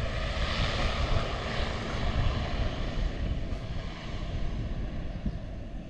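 Wings Air ATR 72 turboprop airliner taking off at a distance: a steady engine noise, strongest in the first couple of seconds and then slowly fading.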